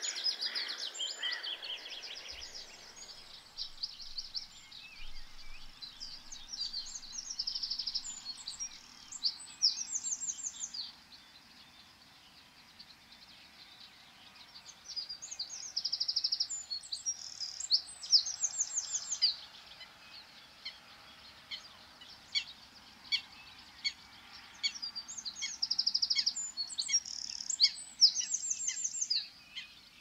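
Dawn chorus of songbirds. The loudest bird sings repeated bursts of rapid, high notes a few seconds long, with pauses between them, and fainter calls sound in the background.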